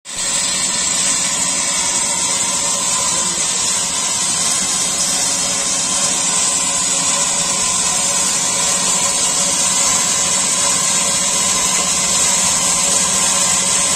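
Self-propelled chip spreader's engine and machinery running steadily, with a constant high whine and hiss over a low hum.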